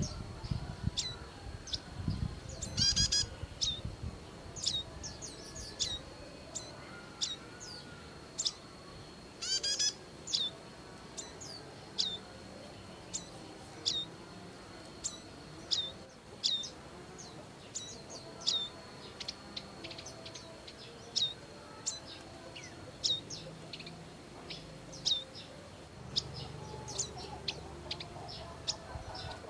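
Prinias calling: a string of short, sharp chirps about once a second, each a quick downward sweep, with two fast rattling trills, about three and ten seconds in. A faint steady high tone runs underneath, and there is a low rumble in the first few seconds.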